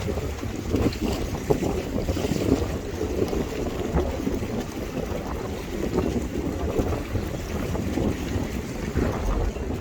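Wind buffeting the microphone over the steady low rumble of a harbour ferry moving through the water.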